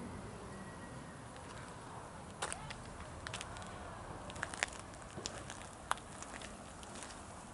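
Footsteps on a dirt driveway: a few scattered light crunches and clicks over a steady background hiss.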